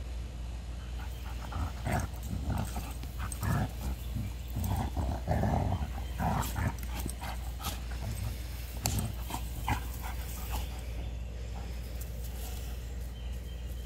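Two dogs play-fighting, a Blue Bay Shepherd and a light-coloured dog, making short bursts of dog vocalizations as they wrestle. The bursts come thickest in the middle and die away in the last few seconds as the dogs separate.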